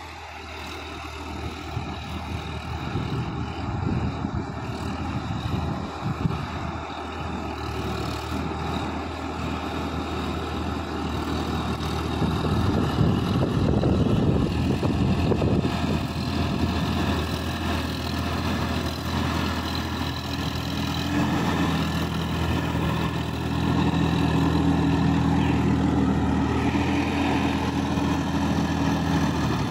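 Sonalika DI-50 RX tractor's diesel engine running steadily as it pulls a rotary tiller through flooded paddy, with water and mud churning. It grows steadily louder as the tractor comes closer, and the engine note is strongest in the last third.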